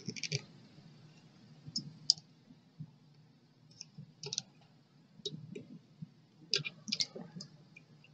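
Needle-nose pliers and a small screwdriver clicking and tapping against a model locomotive's chassis and wheel parts while a spring-loaded piece is worked into place. The clicks are light and irregular, a few at a time, with the loudest cluster near the end.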